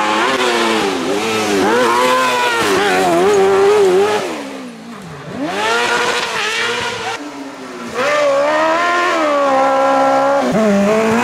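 Kartcross buggies' motorcycle-derived engines revving hard through a corner, the pitch climbing and dropping with throttle and gear changes. Three buggies pass in turn, the sound dropping briefly between them.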